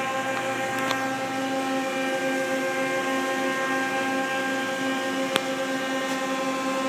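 Steady, even machine hum with several constant tones from the powered-up 1997 Mazak QT-20 CNC lathe, heard at its open electrical cabinet. A single sharp click comes about five seconds in.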